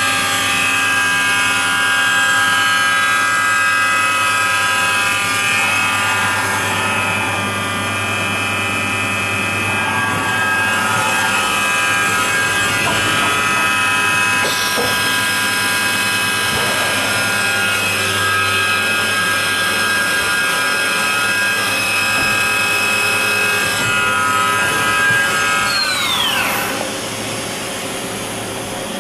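Makino A71 horizontal machining center running, its spindle giving a steady high whine of several tones at once, with a change in pitch about halfway through. Near the end the whine falls quickly as the spindle winds down, and the machine goes quieter.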